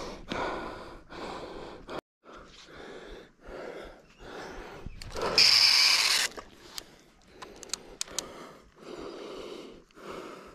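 A person's heavy breathing close to the microphone, noisy breaths about once a second. A louder rushing burst comes about five seconds in, and a few sharp clicks follow it.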